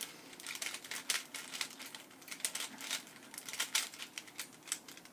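Rubik's cube being scrambled by hand: quick, irregular clicking and clacking of its plastic layers as they are twisted, several turns a second.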